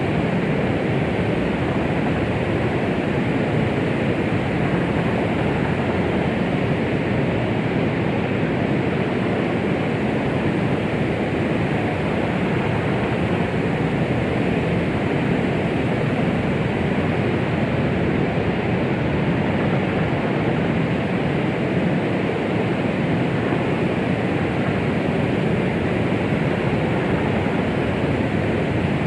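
Steady white noise: an even, deep rushing hiss, heavier in the low and middle tones and thin above the highest tones, with no rhythm and no change in level.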